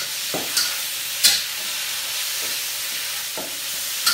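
Food sizzling steadily as it stir-fries in a hot wok, with a few sharp clinks of the spatula against the pan.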